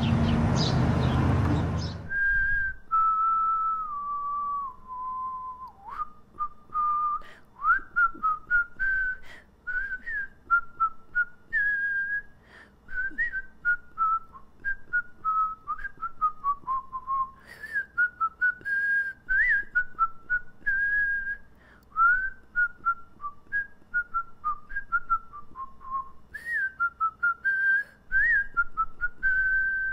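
A person whistling a tune: a single clear whistled line moving up and down in short notes and slides, with a few held notes. It starts about two seconds in, after a loud rushing noise that cuts off suddenly.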